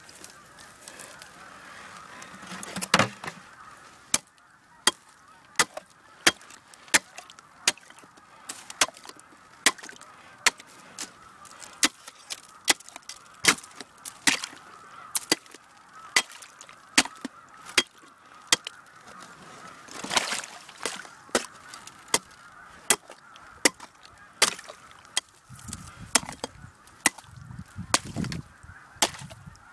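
Ice being chopped with a hand tool in steady repeated strikes, about one and a half a second, to open the ice around a frozen-in trap. Geese honk faintly in the background.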